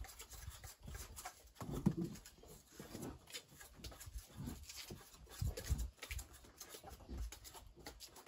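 Kitchen knives scraping the peel off raw cassava roots, a scatter of small scratching strokes, with irregular short low thumps and a few brief low sounds, the loudest about two seconds in.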